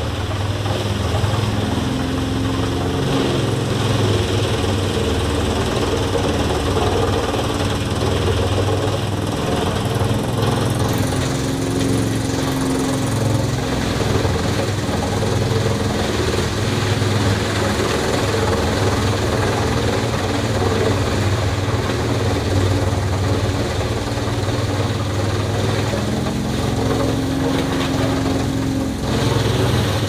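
Heinola 1310 ES mobile wood chipper running steadily under load as it chips whole logs fed in by a crane grapple: a heavy, continuous mechanical drone with a tone that comes and goes a few times.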